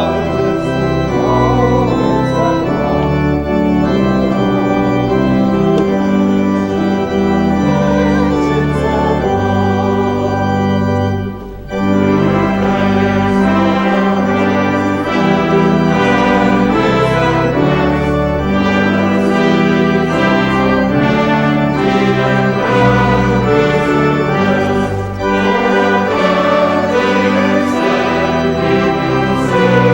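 Church organ playing music in sustained chords, with a short break about eleven and a half seconds in.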